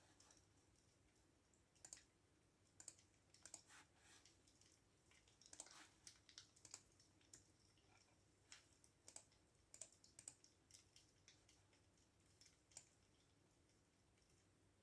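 Faint computer keyboard typing: soft, irregular keystroke clicks in short runs with pauses between them, busiest around the middle.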